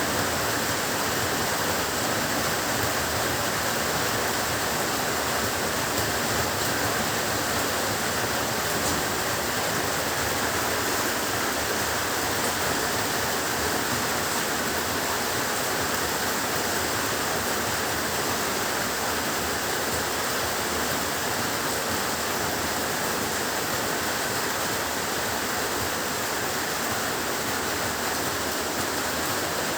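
Heavy rain pouring steadily, a dense, even hiss with no let-up and no thunder.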